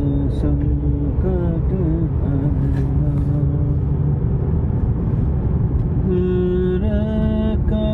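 A man's voice singing long drawn-out notes of a Hindi devotional song to Shiva over the steady rumble of road noise inside a moving car's cabin; the singing pauses in the middle and resumes with long held notes about two seconds before the end.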